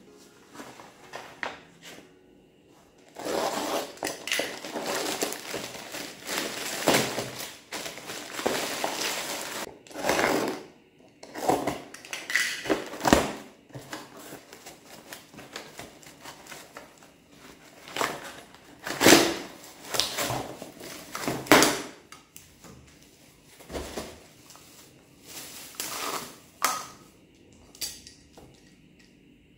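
Cardboard box and plastic packaging being torn open and handled on a countertop: irregular rustling, tearing and crinkling, with short knocks as items are moved and set down.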